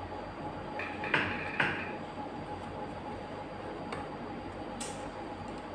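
Wooden craft sticks clicking and tapping as they are handled and set in place. Two sharp clicks come about a second in and fainter ticks follow later, over a steady low hum.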